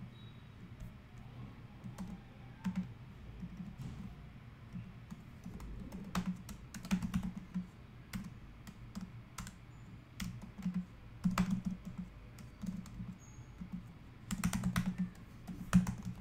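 Typing on a computer keyboard: irregular keystrokes that come in short flurries with pauses between them, over a steady low hum.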